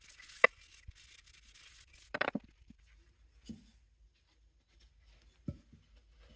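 Sparse light handling noises: a sharp click about half a second in, a short rattling clatter around two seconds in, then a couple of soft knocks, with a faint hiss during the first two seconds.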